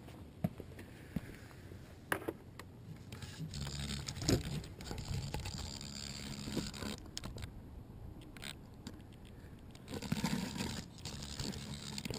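Handling noise from the landed tricopter's GoPro camera: irregular scrapes, rubbing and a few sharp light knocks as it is touched and picked up by hand, with a louder stretch of rubbing near the end.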